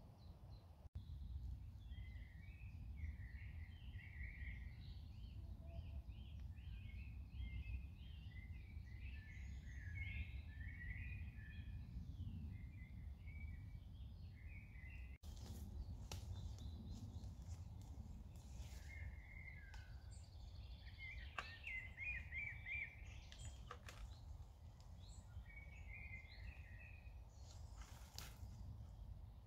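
Woodland birdsong: several small birds chirping and warbling in short phrases, over a steady low rumble. A few faint clicks come in the second half.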